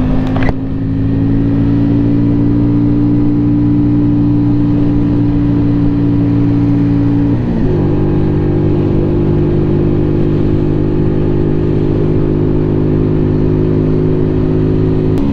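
Keeway V Cruise 125's 125 cc V-twin engine pulling steadily uphill at moderate revs while being run in, with a subdued stock exhaust note. Its pitch creeps up, breaks briefly about seven and a half seconds in as it shifts from third to fourth gear, then holds steady.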